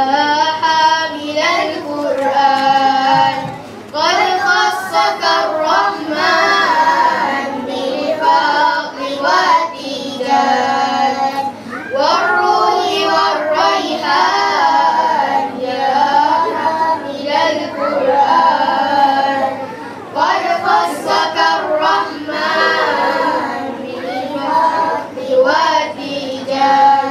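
A group of children singing a song together into microphones.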